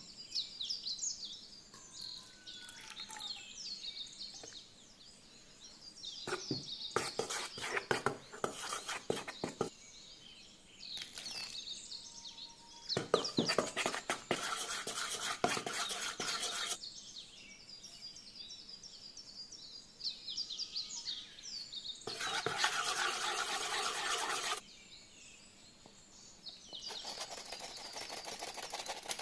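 Small birds chirping throughout, in short falling calls. Four bursts of rustling, scraping noise lasting a few seconds each come several seconds apart and are the loudest sounds.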